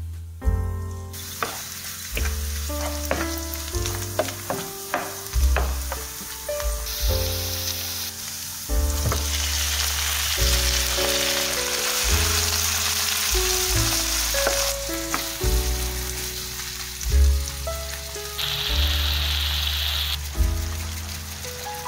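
A knife chopping on a wooden cutting board, then diced sausage sizzling in oil in a frying pan from about seven seconds in, louder as chopped tomatoes go in. Background music with a steady bass line plays throughout.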